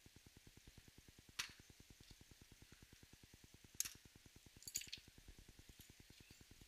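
Near silence with a few faint sharp clicks as a car battery and its terminals are handled by hand: one about a second and a half in, one near four seconds, and a short clatter just after. Under them is a faint low pulsing at about ten beats a second.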